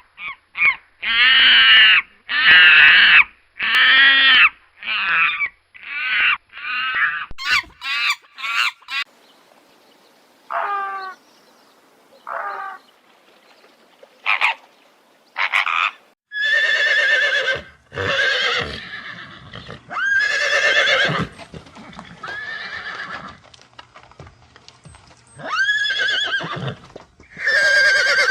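Recorded animal calls, one after another: a quick run of short repeated calls in the first nine seconds, a few sparse short calls, then a series of long horse whinnies from about the middle on.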